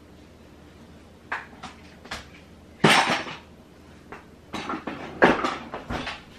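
Kitchen utensils and containers being handled and set down: a string of clacks and knocks, the loudest clatter about three seconds in.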